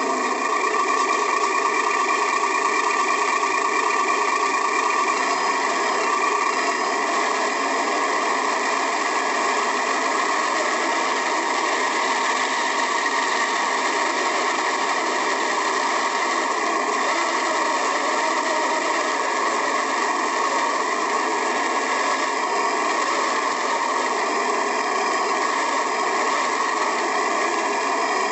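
HG-P408 RC Humvee running, a steady mechanical whirring from its drive heard from inside the cab.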